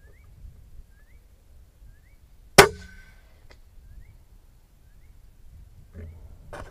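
A single shot from an FX Impact M3 PCP air rifle fitted with a Reflex Douxsilencer: one sharp, suppressed crack about two and a half seconds in, with a short ring after it. Faint short rising chirps come about once a second in the background, and a couple of clicks follow near the end.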